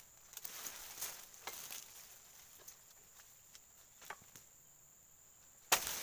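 Rustling through palm fronds with a few light knocks, then near the end one sharp chop as a long-handled blade strikes the base of an oil palm frond. A thin, steady high insect whine runs underneath.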